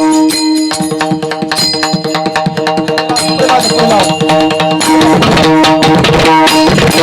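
Instrumental passage of Indian devotional music: a sustained drone note with a melody moving over it, and fast hand-drum strokes keeping the rhythm.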